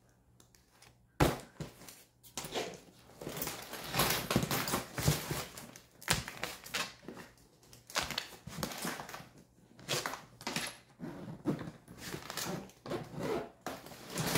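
Packing a hard-shell carry-on suitcase: a strap buckle clicks shut about a second in. Then comes a run of irregular rustling, scraping and knocking as the clothes are pressed down and the lid is closed and handled.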